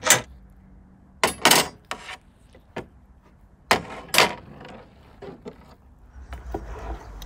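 Metal skewers scraping and knocking against a wooden board as a rack of roasted lamb ribs is lifted off it: several short, sharp scrapes, the loudest in two close pairs, then a few faint taps.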